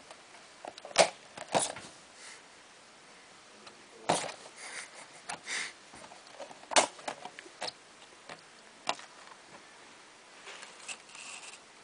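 A young corn snake striking at a hand in a clear plastic tub: about five sharp knocks and many lighter taps on the plastic, at irregular times, with a few short breathy hisses in between.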